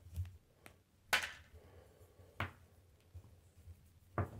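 Handling noise as a braided nylon USB cable is uncoiled in the hands: about five short knocks and scrapes, the loudest about a second in, with a brief rustle.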